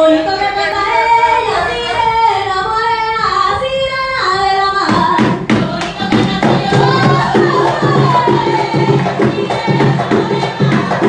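Tamborito folk song: a woman's voice sings alone at first. About five seconds in, hand drums come in with a steady beat while the singing continues.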